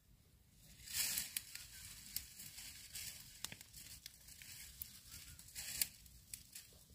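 Dry sticks and leaf litter crackling and rustling as they are handled at a small campfire, with scattered sharp snaps and two louder rustling bursts, about a second in and near the end.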